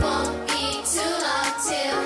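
Electronic dance music with a high sung vocal line; the deep bass fades out in the first half second, leaving the vocal over a few drum hits.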